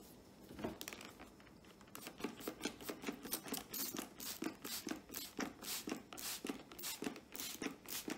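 A cloth wiping back and forth over a computer monitor's casing. After one short stroke just under a second in, a quick run of rubbing strokes begins about two seconds in, roughly three or four a second.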